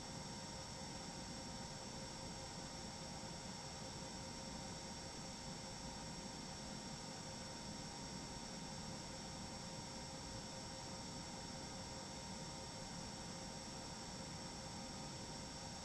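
Steady hum and hiss with a few faint, thin whining tones and no events: the room tone of a large, empty indoor space.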